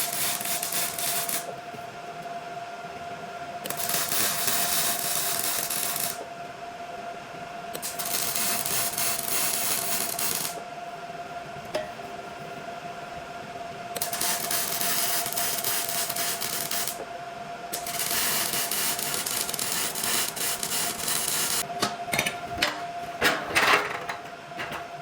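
Angle grinder cleaning metal cart legs: a steady motor whine, broken by repeated passes of a few seconds each where the disc bites into the metal, with a few sharp clanks near the end.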